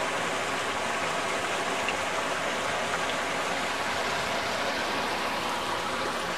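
Small mountain creek running over boulders and stones, a steady rushing of water.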